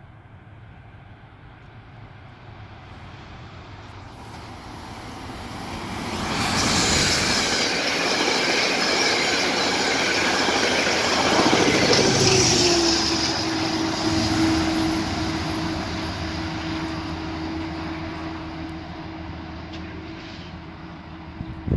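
Metro-North express of Shoreliner coaches with a GE P32AC-DM diesel locomotive trailing, passing at speed. The rush of wheels on rail builds over several seconds and stays loud for about six seconds. As the rear of the train goes by, a steady hum drops slightly in pitch, then holds while the noise fades as the train moves away.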